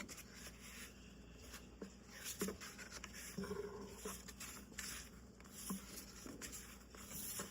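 Faint rustling and light taps of thick cardstock cards and hardcover books being handled, with scattered soft clicks and a brief faint squeak about three and a half seconds in.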